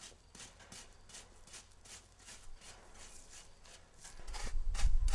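Rapid, repeated scraping strokes, about four a second, of a hand tool working loose asphalt. A loud low rumble comes in about four seconds in.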